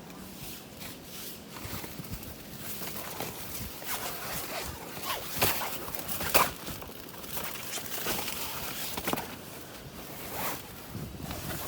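Irregular rustles and light knocks of things being handled, with the loudest about five and a half and six and a half seconds in.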